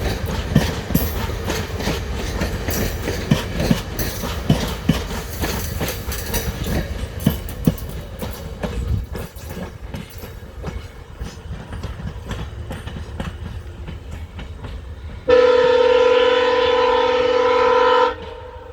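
Via Rail passenger train rolling past, its wheels clacking over rail joints over a low rumble, the clacking thinning out over about ten seconds. About fifteen seconds in, a train horn sounds one loud, steady blast of about three seconds, then cuts off abruptly.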